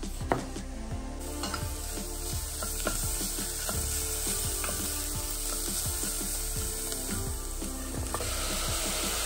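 A knife chops once on a wooden cutting board, then onion and grated carrot sizzle in oil in a stainless steel pot while a wooden spatula stirs and scrapes with quick clicking. About eight seconds in the sizzle grows fuller as diced tomato is added.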